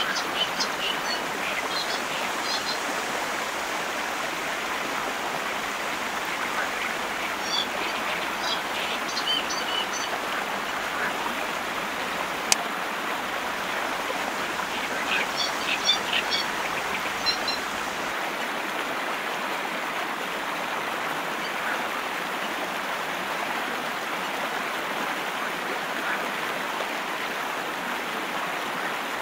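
Steady rush of flowing water, like a stream. Over it come three spells of short, high bird chirps: near the start, about a third of the way in, and just past the middle. A single sharp click comes a little before the middle.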